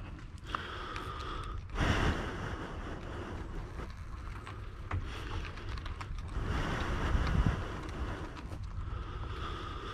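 Wind buffeting the microphone over the slow roll of a small pickup's tyres on asphalt as it is pushed by hand with its engine dead, with irregular low thuds.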